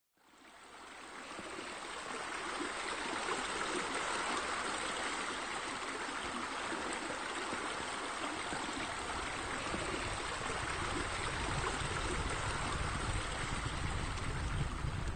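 Steady running, trickling water, fading in over the first couple of seconds, with a low rumble joining near the end.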